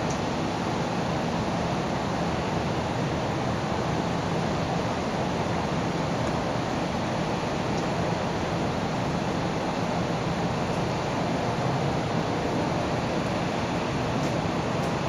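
Steady rushing noise with no distinct events, unchanging throughout.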